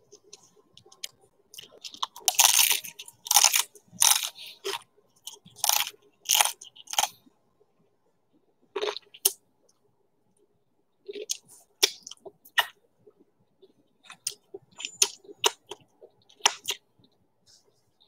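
Close-miked chewing of crunchy food: a quick run of loud crunches about two seconds in, a pause, then sparser, sharper crunches and mouth clicks.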